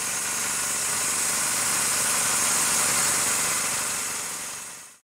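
The 11 hp engine of a homemade car-wheel bandsaw mill running steadily, with a strong high hiss over the engine note. The sound fades out near the end.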